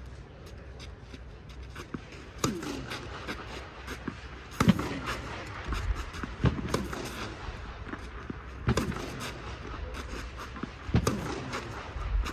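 Tennis racket striking balls in a feeding drill, sharp hits about once every two seconds, with softer ball bounces on the clay court between them.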